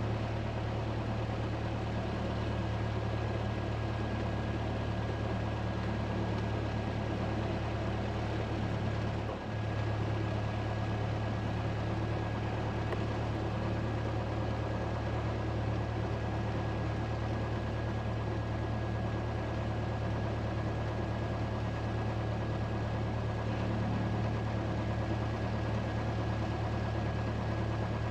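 Single-engine light aircraft's piston engine running steadily at low taxi power, a constant drone with a faint steady high whine above it. About a third of the way in, the drone dips briefly in pitch and level, then steadies again.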